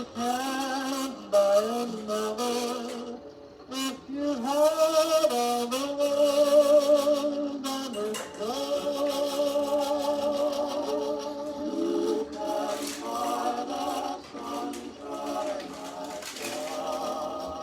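Victrola phonograph playing a record of a singer with vibrato over accompaniment. The sound is thin, with no bass.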